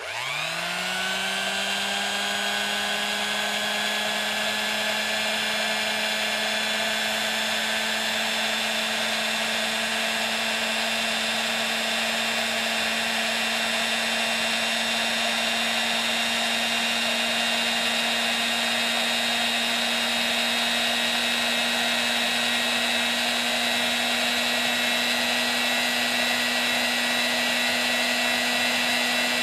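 Old electric mixer motor switched on at low speed, whining up to speed in the first second and then running with a steady hum and whine.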